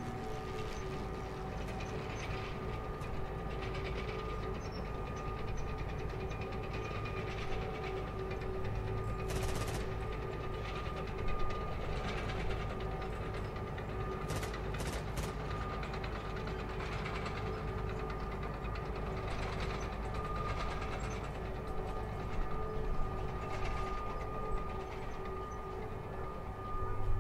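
Steady low rumbling drone with a few held tones, with a few brief rustles about the middle.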